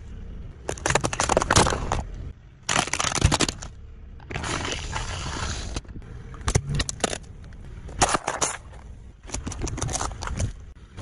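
A car tyre rolling over and crushing objects on the road: a string of about six separate bursts of crunching and crackling, each a fraction of a second to over a second long, with short quieter gaps between them.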